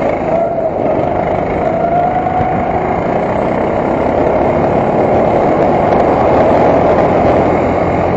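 Kart engine running hard under way, picked up by a camera mounted on the kart, its note wavering up and down slightly through the corners over a dense steady rush of noise.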